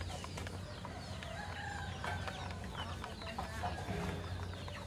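Chickens clucking in short calls, with scattered light clicks.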